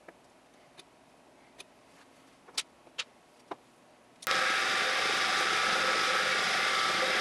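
A few sharp, separate clicks and taps of small aluminium parts and a scriber on a workbench. About four seconds in, a milling machine starts loud and steady as its end mill cuts an aluminium block held in a vise.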